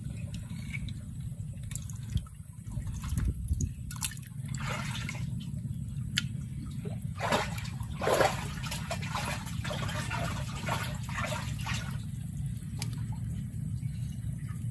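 Shallow water splashing and dripping in irregular bursts, with louder splashes about two and eight seconds in, over a steady low rumble.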